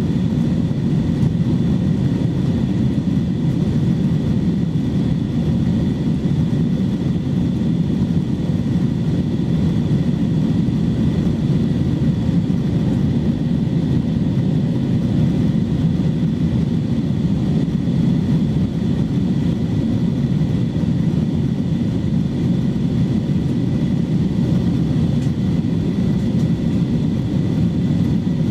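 Steady roar of an Airbus A321-211 in flight, its CFM56 turbofan engines and the rushing air heard from inside the cabin, with two faint high steady tones on top.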